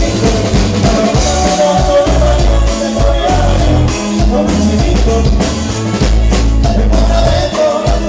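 A live band playing dance music: singing over a drum kit with a steady beat and heavy bass.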